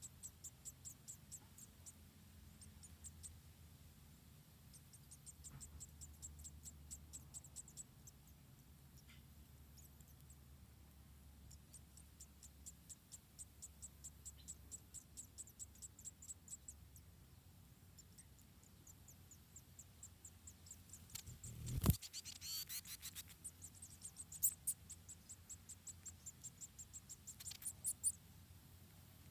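Rapid, evenly repeated high insect chirping over a faint low hum. About three-quarters of the way through comes a sudden loud burst, followed by a few seconds of high squeaky sounds.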